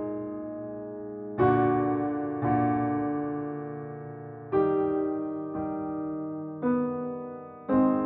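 Slow, soft piano music: chords struck about once a second, each left to ring and fade. No ocean waves can be made out.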